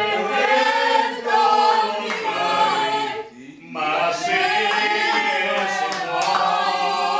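A small group of people singing together without accompaniment, with a short break about three seconds in.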